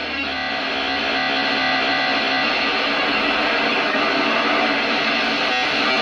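BMC46 digital noise generator synth module putting out a dense, steady digital noise with steady tones running through it, as its noise knob is worked.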